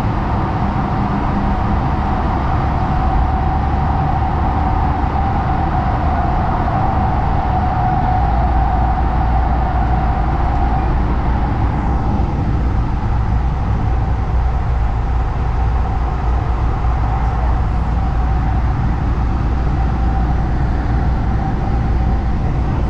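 LA Metro rail car running, heard from inside: a steady rumble of wheels on the track with a steady whine that fades about halfway through, while the low rumble grows stronger.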